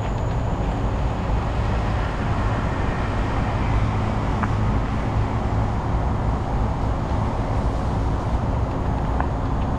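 Steady wind rush and low rumble on the microphone of a camera moving along a dirt trail, with a couple of faint ticks.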